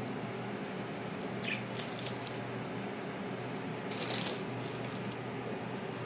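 Short crackling rustles of hands pressing egg-dipped chicken nuggets into breadcrumbs and setting them down on a paper-lined tray, the loudest about four seconds in. A steady fan-like hum runs underneath.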